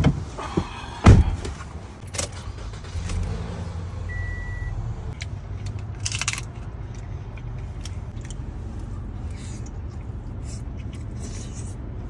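Car door shutting with a loud thud about a second in, among keys jangling and small clicks, then a steady low rumble of the car running, with one short beep of a car chime at about four seconds.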